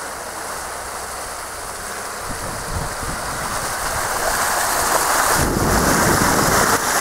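Land Rover Discovery 3 driving slowly past at close range on a wet, muddy track. Its engine and tyre noise grow steadily louder from about halfway through, with a deeper rumble near the end.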